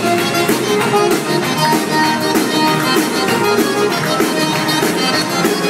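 Live Cajun dance band playing amplified: a wavering lead melody over pedal steel guitar, electric bass and a drum kit keeping a steady beat.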